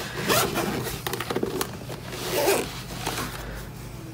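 A zipper being pulled open in a few strokes, on the carrying case of a DJI Mavic Mini drone bundle.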